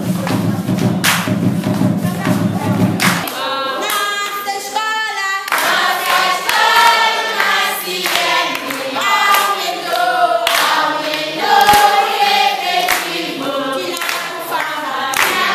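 About three seconds of music with a low, pulsing beat, then a classroom of schoolchildren singing together as a group, with hand claps running through the song.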